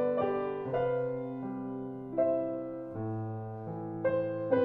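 Background piano music, a new note or chord struck about every half second to a second and left to ring.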